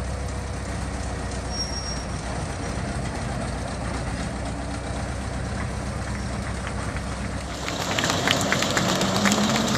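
Ruston 48DS diesel shunting locomotive's two-cylinder engine running with a steady low rumble as the locomotive moves off slowly. About eight seconds in the sound turns louder and noisier, with a run of sharp clicks.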